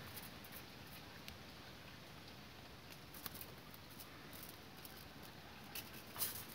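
Faint scattered clicks and light taps of size-3 bonsai training wire being handled and uncoiled, with the loudest tap about six seconds in.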